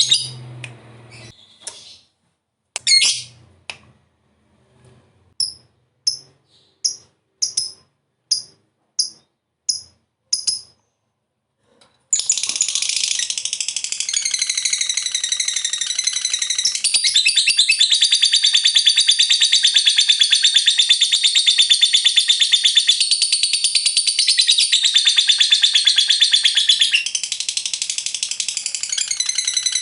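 Lovebird calling: a few sharp high chirps, then a run of about eight short, evenly spaced chirps. After a brief pause comes a long, continuous, rapid chattering trill, the long "ngekek" song prized in fighter lovebirds.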